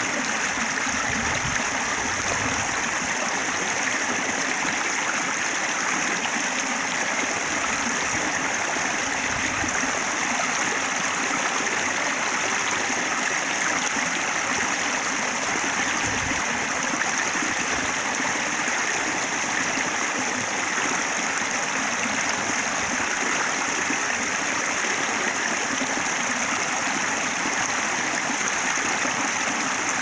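Shallow stream running steadily over a low rock ledge, a continuous rush and splash of water.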